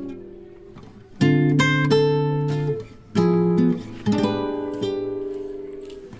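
Background music: acoustic guitar chords, each plucked sharply and left to ring and fade, about 1 s, 3 s and 4 s in.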